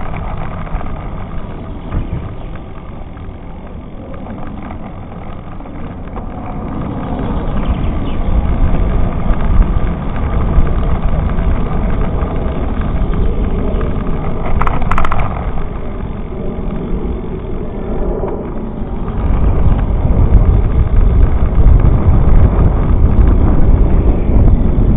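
Wind rumbling over the microphone of a camera riding on a moving bicycle, mixed with tyre noise from the road. The rumble grows louder over the last several seconds, and there is a brief sharp knock about fifteen seconds in.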